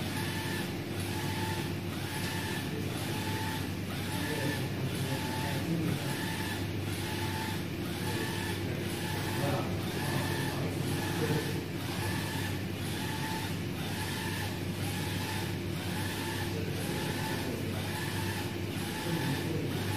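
UV flatbed printer printing, its print-head carriage shuttling back and forth about once a second, each pass with a short motor whine, over a steady machine hum.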